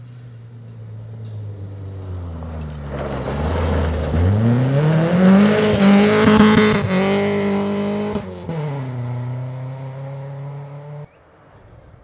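Rally car engine on a special stage: its pitch sags, then climbs hard under full acceleration as it comes closer. It is loudest about six to seven seconds in, drops sharply in pitch about eight seconds in, and cuts off suddenly near the end.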